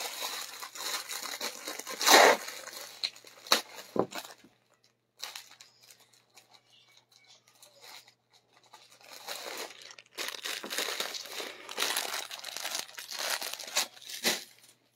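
Plastic packaging crinkling and rustling as a garment is handled and pulled out of it, in two spells with a quieter gap of about four seconds in the middle.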